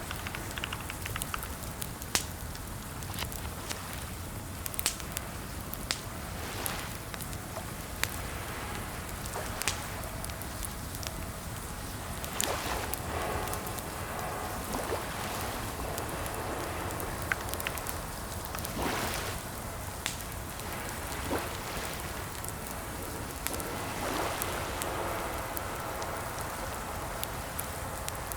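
Computer keyboard typing: scattered, irregular key clicks over a steady background hiss.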